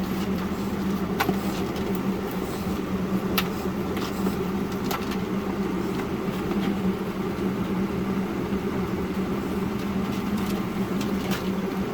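Swamp cooler (evaporative cooler) running: a steady fan-and-motor hum with a constant low drone and rushing air, broken by a few faint clicks.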